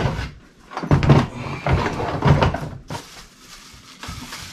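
Hard plastic Milwaukee Packout tool boxes knocking and clunking as they are handled and set onto a stack: a run of sharp knocks and dull thuds, the loudest about a second in, with more around two seconds.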